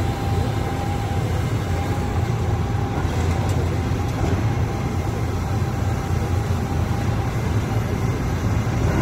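Diesel engines of tracked excavators running steadily: a constant low drone that does not rise or fall.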